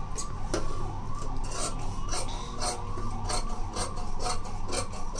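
Large steel tailoring shears cutting through cotton-like blouse fabric on a table: a steady run of crisp snips, about two a second.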